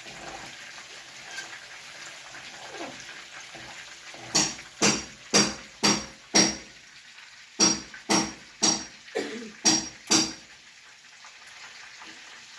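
Eleven sharp, ringing metallic knocks, about two a second in two runs of five and six, like a metal utensil rapped against a pot, over the faint steady sizzle of chicken frying.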